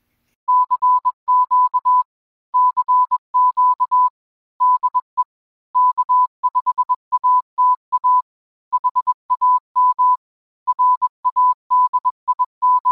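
Morse code sent as a steady tone of about 1 kHz, keyed on and off in quick dots and dashes grouped into letters with short pauses between them.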